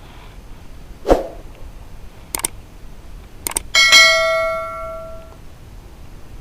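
A dull knock, two sharp clicks, then a metal object struck and ringing like a small bell, fading over about a second and a half.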